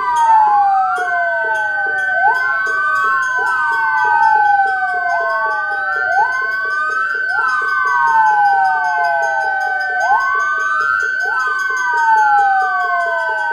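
Fire engine and rescue vehicle sirens sounding together. Several wails sweep down and back up out of step with one another, over one steady high tone and a fast low pulsing.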